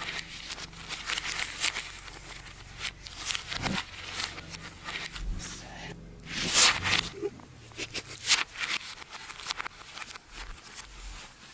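Thin phone-book pages rustling and crinkling as they are leafed through by hand, in short irregular rustles, the loudest about six and a half seconds in.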